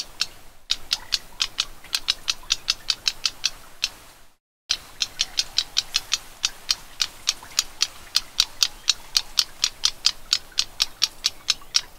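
Black-browed reed warbler giving a rapid series of dry ticking calls, about five or six a second, in runs broken by short silent gaps.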